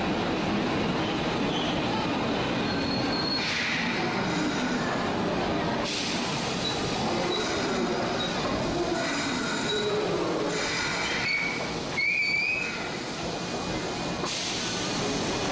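Subway train in an underground station, a steady rumble with several short high wheel squeals, the strongest about three quarters of the way through.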